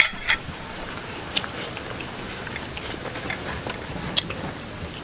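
Eating by hand: chewing, with scattered small clicks and smacks as chicken feet and rice are picked up and eaten.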